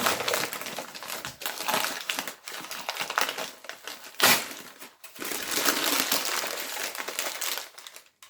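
Plant-delivery packaging being handled and pulled apart, with continuous crinkling and rustling and a sharp snap about four seconds in.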